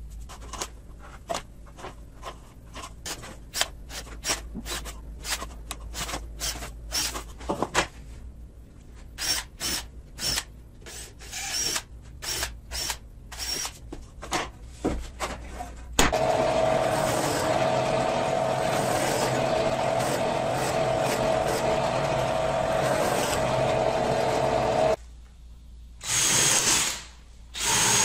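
Pine boards knocked and shifted on a wooden workbench, with many sharp knocks. About sixteen seconds in, a power tool starts suddenly and runs steadily for about nine seconds. Near the end a DeWalt cordless drill runs in short bursts.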